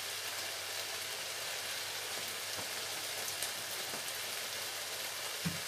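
Thick onion-tomato masala sizzling steadily in a non-stick wok, a hiss with faint scattered crackles. A single soft low thump near the end.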